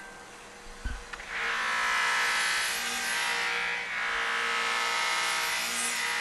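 Handheld rotary tool with a red abrasive polishing wheel running against the surface of an aluminium propeller blade, a steady motor whine with a rushing scrub. After a brief pause and a short thump, it comes back on about a second in.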